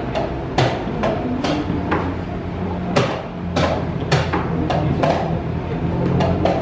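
Wooden chess pieces set down on the board and chess clock buttons pressed during a fast blitz game: about ten sharp clicks and knocks in quick, irregular succession.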